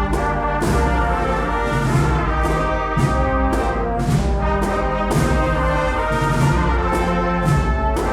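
Agrupación musical (brass and percussion band) playing a Holy Week processional march: sustained brass chords from trumpets and trombones over steady drum and cymbal strokes about twice a second.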